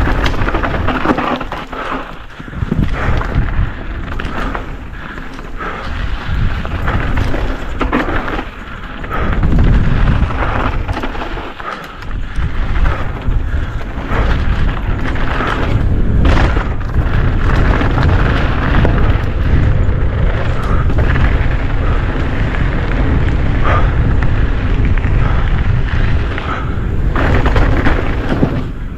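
Downhill mountain bike running down a dirt trail: knobby tyres rolling on the ground and the bike rattling and knocking over bumps, under a heavy rumble of wind across the camera microphone.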